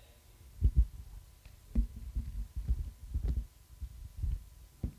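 A series of irregular dull thumps and bumps, with two of the strongest close together under a second in and another near two seconds.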